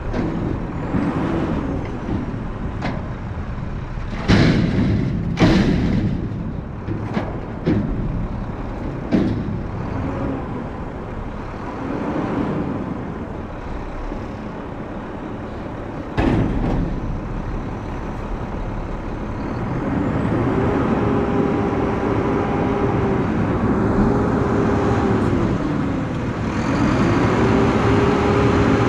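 Front-load garbage truck emptying a steel dumpster: the container and its lids bang against the hopper several times in the first ten seconds, with one heavy bang about 16 seconds in. After that the diesel engine revs and the hydraulics whine in three rising, held and falling swells while the forks and packer work.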